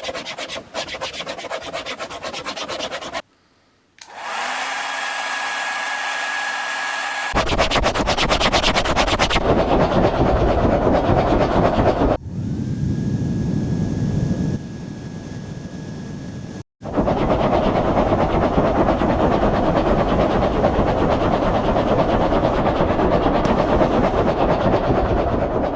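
A hair dryer blowing and a sketchbook worked against it to imitate a steam train, in several takes that stop and start: stretches of steady whine, one rising into a high tone, alternate with louder rushing noise with a fast rattle.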